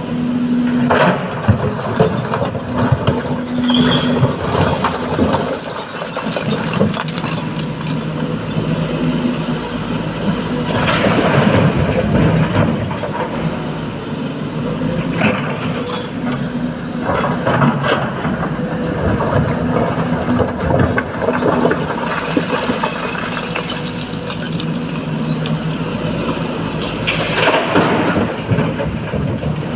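Heavy diesel machinery running steadily, with a few loud rushing, clattering bursts a second or two long, typical of an excavator dumping loads into a truck bed.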